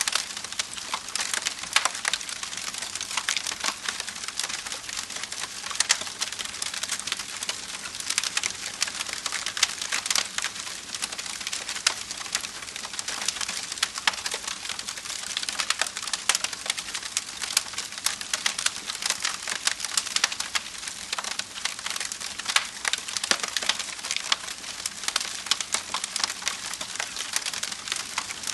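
Wood fire crackling, with a steady stream of sharp pops and snaps over a soft hiss.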